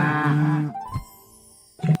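A cow mooing: one loud drawn-out call that breaks off under a second in, over light background music.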